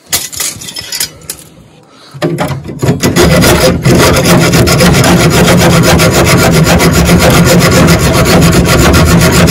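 Hand hacksaw cutting through rusted steel on a Land Rover Defender 110's rear chassis cross member. The sawing starts about two seconds in and goes on loud and steady in fast, even strokes.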